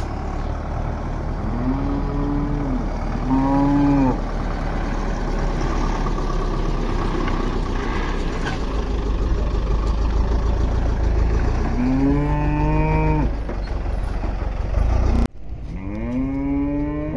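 Cattle mooing: four drawn-out moos, two close together about two seconds in, one about twelve seconds in and one near the end, over a steady low rumble.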